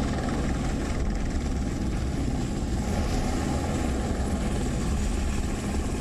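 Navy helicopters flying past in formation: a steady drone of rotors and engines with a heavy low rumble.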